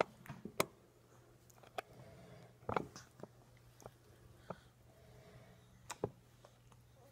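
A one-year-old child eating soft red fruit: a scattering of faint wet clicks and smacks from mouth and hands, several seconds apart, with a slightly louder cluster a little under three seconds in.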